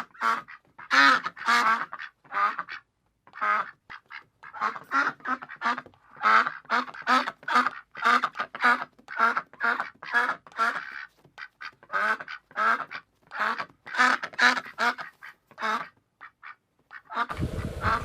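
A duck quacking over and over in quick runs of calls, with short breaks between the runs. Near the end the calls stop and a steady rushing noise comes in.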